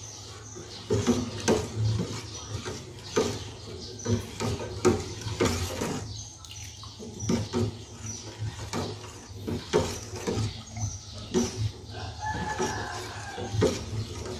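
Metal ladle stirring a thick coconut-milk and mung bean mixture in a stainless steel pot, clinking and scraping against the pot at irregular moments, one or two knocks a second, over a steady low hum.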